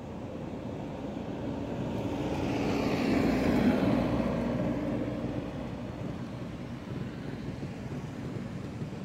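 Engine noise of something passing by, a rumble that swells to its loudest three to four seconds in, dropping in pitch as it goes, then fades back to a steady background.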